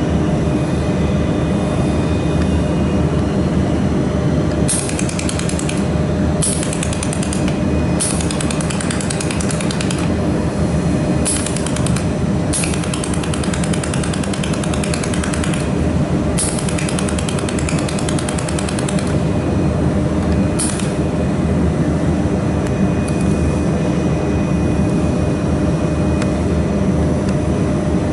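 Mould laser welding machine firing in bursts of rapid crackling pulses, about seven bursts lasting from half a second to three seconds, over the machine's steady hum.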